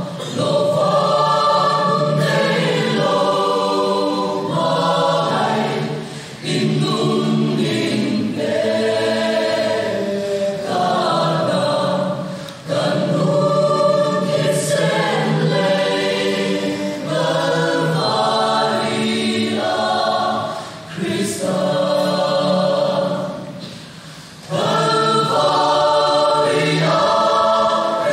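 Mixed choir of men's and women's voices singing a hymn together, in long phrases with short breaks for breath between them.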